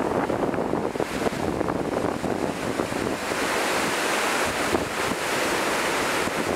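Surf washing up a sandy beach, a steady rushing hiss with wind buffeting the microphone; the hiss grows brighter from about three seconds in as a wave washes in.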